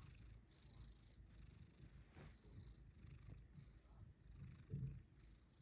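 Tabby cat purring faintly, a low pulsing rumble, while its belly is rubbed.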